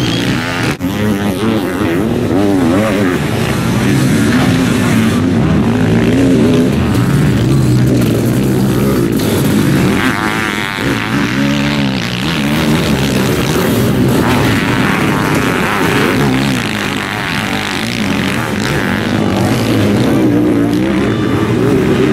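Sidecarcross outfits racing on a dirt track: motorcycle engines revving hard, the pitch climbing and dropping again and again as the throttles open and close through the corners, with several engines overlapping as the outfits pass.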